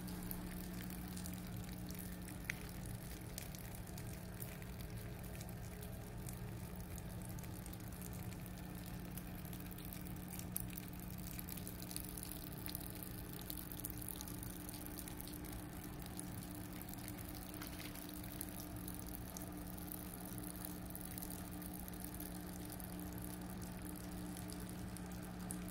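A steady low hum with a fainter tone above it over a faint hiss, with a few faint clicks.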